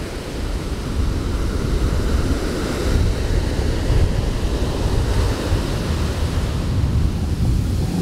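Ocean surf breaking and washing up a sandy beach, with sea wind buffeting the microphone in a steady low rumble.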